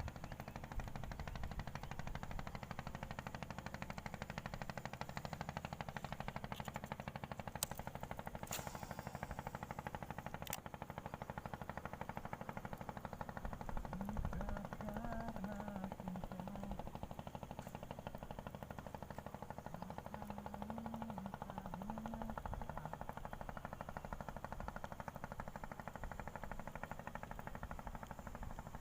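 A small engine running steadily with a rapid, even firing beat. A faint wavering tone rises and falls over it twice, and a few sharp clicks come through about eight to ten seconds in.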